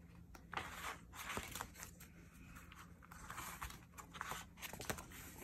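Sticker sheets in a sticker book rustling and flapping as they are leafed through by hand, with scattered light clicks and paper scrapes in two busier stretches, about a second in and again around three to four seconds in.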